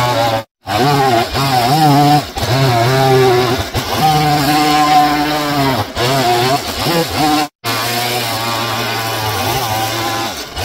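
Stihl MS 170 chainsaw's small two-stroke engine revving and carving into wood, its pitch rising and falling as it speeds up and slows under the cut. The sound breaks off abruptly for a moment twice, about half a second in and again about seven and a half seconds in.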